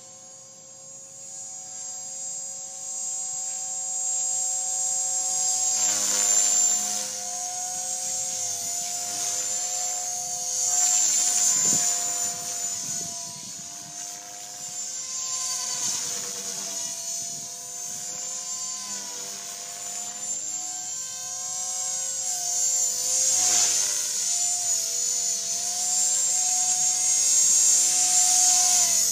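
Blade 450X electric RC helicopter flying mild 3D manoeuvres: the high whine of its brushless motor over the steady hum of its spinning rotor. The sound grows louder over the first few seconds as the helicopter comes nearer, then swells several times as it passes close and changes pitch, loudest near the end on a low pass.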